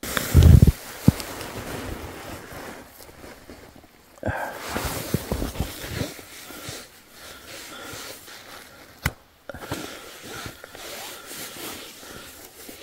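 Packed snow crunching and scraping as hands dig and smooth out a hollow in a snowbank, with a heavy low thump just after the start and a few sharp knocks.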